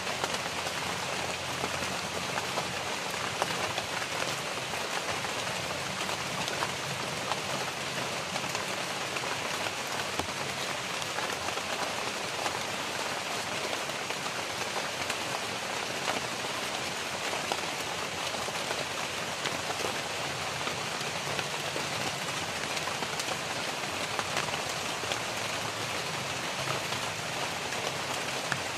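Steady rain falling on the surrounding leaves, a continuous patter made of countless small drop hits.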